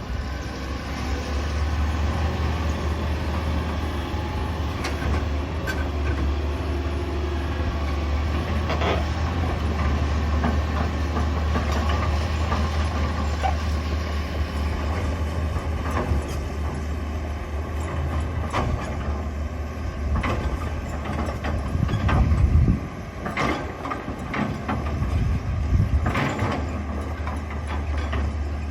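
Excavator's diesel engine running steadily under working load, with scattered knocks and clanks in the second half and one louder surge past the middle.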